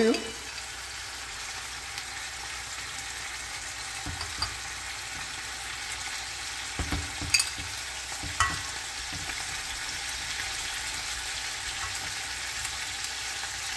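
Thick mahi-mahi fillets frying in melted butter in a pan over high heat, a steady sizzle. A few light knocks of a utensil against the pan come about 4, 7 and 8.5 seconds in.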